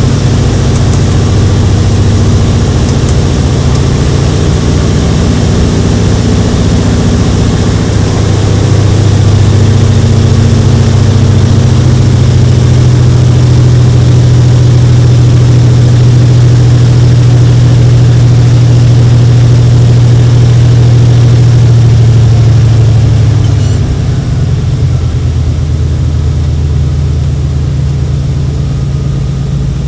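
Single-engine floatplane's piston engine and propeller running steadily while taxiing on the water, heard loud from inside the cabin. About 23 seconds in the engine note drops and quietens as it is throttled back.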